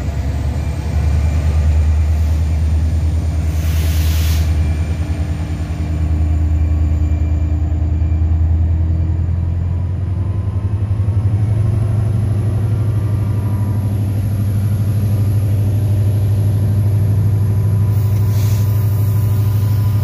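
Diesel engine of an EMD GT46AC locomotive running under way, a deep steady drone that steps up in pitch about halfway through as the engine speeds up. There is a brief hiss about four seconds in and again near the end.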